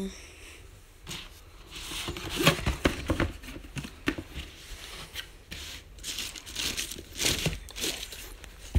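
Tissue paper crinkling and rustling in irregular bursts as shoes are unwrapped from a cardboard shoebox, starting about a second in.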